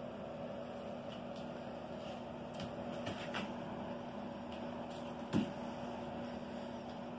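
A steady machine hum in a small room, with a few faint clicks and one short, soft thump about five seconds in.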